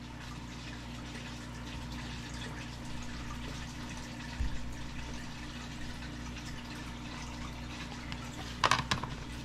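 Steady low hum and hiss of room tone, with a soft knock about four seconds in and a few sharp clicks near the end as a hard plastic graded-card slab is handled.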